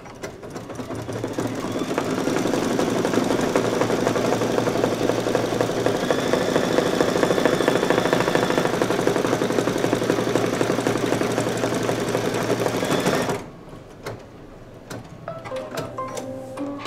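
Brother Luminaire single-needle embroidery machine stitching at speed through clear vinyl layered over quilted fabric. It builds up over the first couple of seconds, runs with a fast, even rattle and stops abruptly about 13 seconds in.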